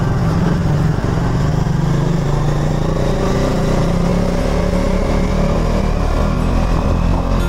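A motorcycle engine running steadily at low speed, with a steady hiss of tyres on a wet road.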